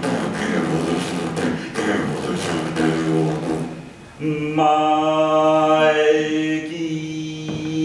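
A man's voice on stage: short broken vocal sounds with no recognisable words, then about four seconds in a long, steady, held sung note.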